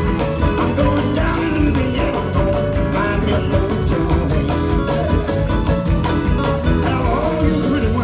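Live blues band playing, with a voice singing over it.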